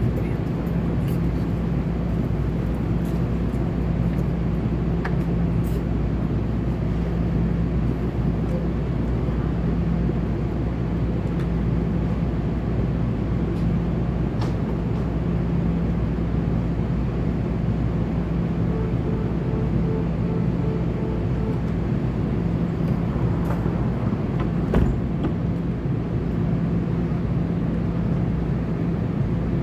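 NJ Transit Bombardier bilevel commuter train standing at the platform, its onboard equipment giving a steady low hum and drone. One sharp knock near the end.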